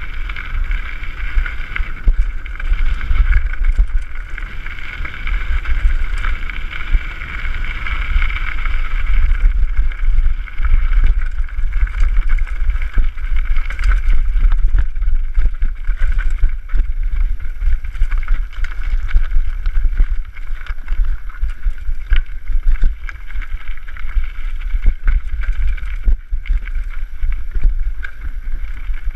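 Mountain bike coasting fast down a stony gravel track: wind buffets the microphone, and the bike clatters and knocks over loose stones, the knocks coming thicker in the second half. A steady high whine runs through the first third and then fades.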